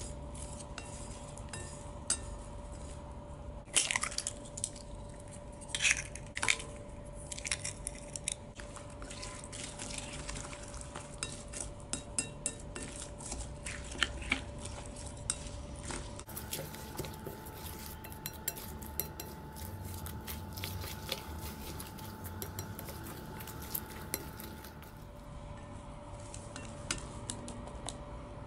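A utensil stirring shredded cabbage in a glass bowl, clinking and scraping against the glass in quick irregular taps, with a few louder knocks about four and six seconds in. A faint steady hum runs behind.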